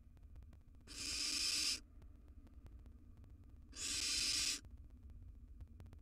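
Barn owl nestlings giving two harsh hissing 'snore' calls, each a little under a second long and about three seconds apart. This hissing snore is the call barn owl chicks use to beg for food.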